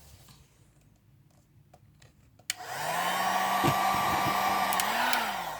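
Heat gun switched on with a click about two and a half seconds in, its blower running steadily for about three seconds before being switched off, the motor's hum sliding down as it spins down.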